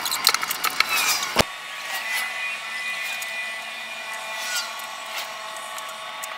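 Light wooden clattering and knocking as the wooden truss fuselage frame is handled and turned over, ending in a sharp knock about a second and a half in. Then a steady hum of several even tones with light taps.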